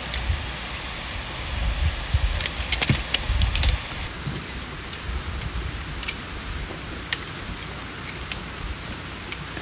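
Light clicks and rattles from folding camp chair metal frames being handled, busiest over the first four seconds. After that there is a steady hiss with a few faint ticks.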